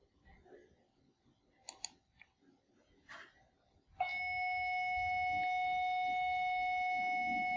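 School bell ringing: one loud, steady, unbroken tone that starts about four seconds in and keeps going. Before it, a few faint mouse clicks.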